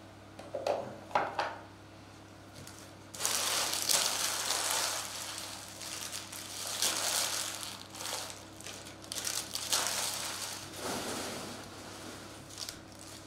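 Empty foil trading-card pack wrappers being crumpled and gathered up by hand: a crinkly rustle that comes in repeated surges from about three seconds in, after a couple of light knocks about a second in.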